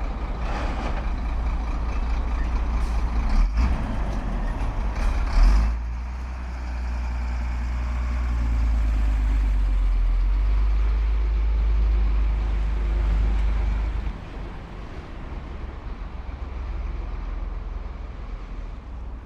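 Road traffic on a city avenue, with the deep engine rumble of a passing heavy vehicle that drops away about fourteen seconds in. A few short sharp noises come in the first six seconds.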